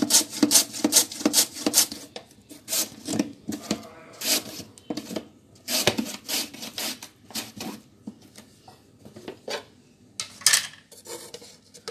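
Raw potatoes being sliced on a plastic mandoline slicer: each push of the potato across the steel blade gives a short rasping scrape. The strokes come quickly and evenly at first, about four a second, then turn slower and scattered, with short pauses.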